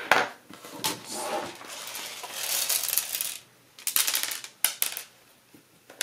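Small metal laptop screws and a screwdriver clinking and rattling on a desk as they are handled. A few sharp clicks at the start, a longer spell of rattling in the middle, and a quick cluster of clicks about four seconds in.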